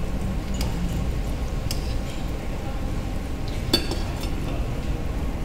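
Metal tongs clinking against a stainless steel frying pan while turning jalebi in hot oil: a few sharp clinks, the loudest about two-thirds of the way through, over a steady low background noise.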